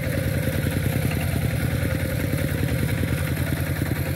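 Walking tractor's single-cylinder diesel engine running steadily with a fast, even chug.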